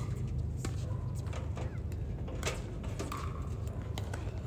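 A steady low hum with scattered light taps and shoe scuffs on a hard tennis court, from a player shifting their feet while waiting for a serve.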